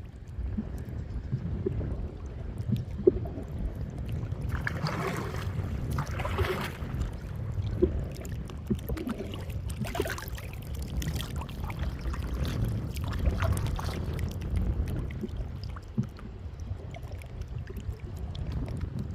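Water sloshing and splashing over a steady low rumble, with a few brief louder splashes.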